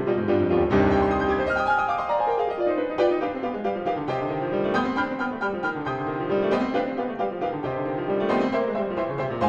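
Solo piano music laid over the footage, runs of notes rising and falling at an even, unhurried pace.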